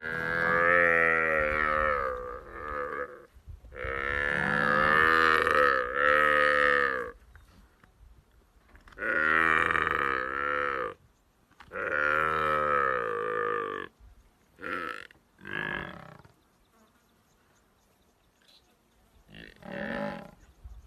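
Newborn buffalo calf bawling in distress while a spotted hyena attacks it. There are four long, loud, pitched bellows in the first fourteen seconds, then a few shorter calls.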